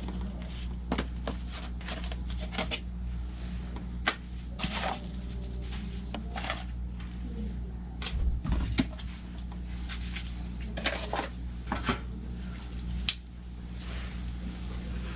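Scattered clicks, taps and light metallic rattles of small parts and tools being handled while a furnace flame sensor is fitted, over a steady low hum.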